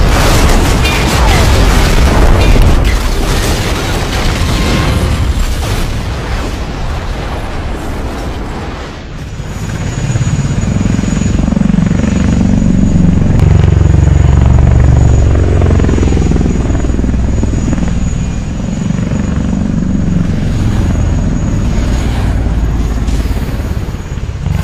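Explosion rumble and booms for the first several seconds, then, after a brief dip, the low buzzing hum of a large multirotor drone's rotors in flight, with a faint high steady whine over it.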